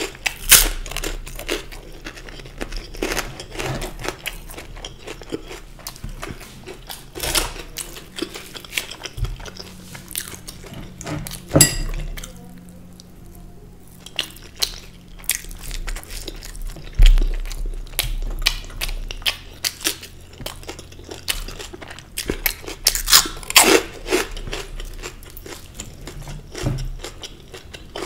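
Close-miked eating: chewing, lip smacks and crunchy bites of kadhi-soaked rice and fried pakoras eaten by hand, heard as irregular clicks and smacks, briefly quieter about halfway through.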